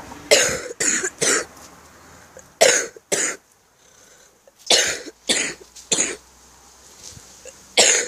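A person coughing hard, about nine harsh coughs in short bouts of two or three with pauses between. The cough has lasted about five weeks, and the cougher suspects a chest infection.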